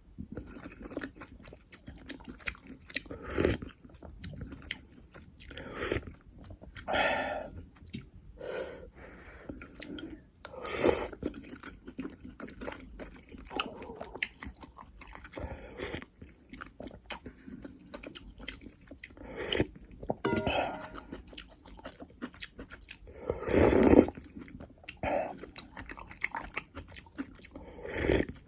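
Close-up chewing and biting while eating army sausage stew and beef: a string of wet mouth clicks with irregular louder bursts every few seconds, the loudest about 24 seconds in.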